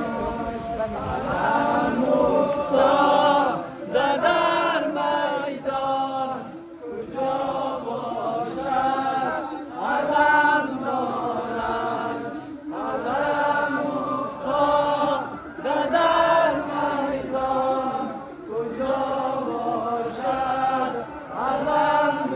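A group of men chanting an Ashura noha, a Shia mourning lament, together in short sung phrases that repeat every second or two.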